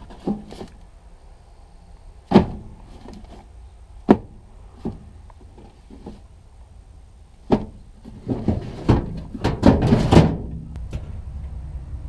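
Scattered sharp knocks and clicks as a plastic parts drawer and the small parts boxes in it are handled. They give way to a denser run of rattling and knocking about two-thirds of the way in, as a drawer is shut and the latch of a metal storage cabinet door is worked.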